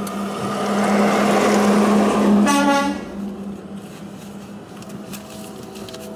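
A vehicle goes by on the street and gives a short toot of its car horn about two and a half seconds in.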